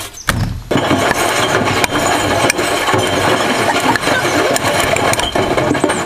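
Hotpoint front-loading washing machine running with a thick glass jar tumbling in the drum: a dense clatter of glass knocking against the drum over the machine's running noise, after a low thump near the start.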